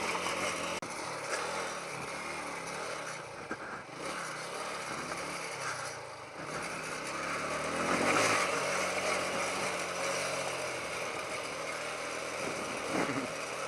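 TVS Apache RTR 180's single-cylinder engine running while the bike is ridden up a dirt track, the engine note rising about eight seconds in.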